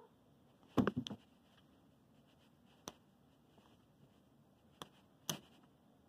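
Quiet background with a few sharp clicks and taps close to the microphone: a short cluster about a second in, then single clicks spread through the rest.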